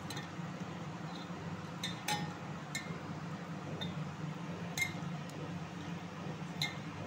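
Hand mixing fish pieces in spice paste in a stainless steel bowl, with irregular sharp metallic clinks roughly once a second as the hand knocks against the bowl. A steady low hum runs underneath.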